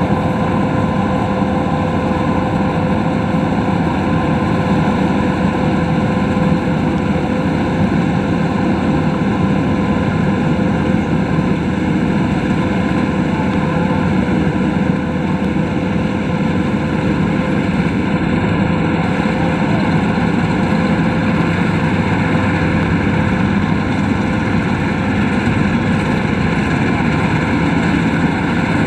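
Combine harvester running steadily while harvesting rice: a constant engine and machinery drone with a steady whine.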